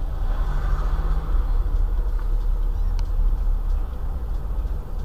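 A car's engine and road noise from inside the cabin make a steady low rumble, with a faint click about three seconds in.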